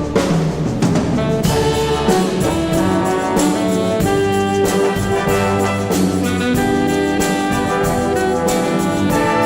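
Instrumental music led by brass, with sustained chords and a steady beat.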